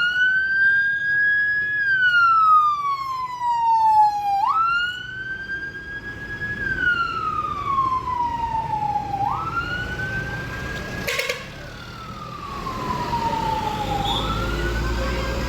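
A siren wailing in repeated cycles, each a quick rise in pitch, a short hold, then a slow fall, about every five seconds. One sharp click about eleven seconds in.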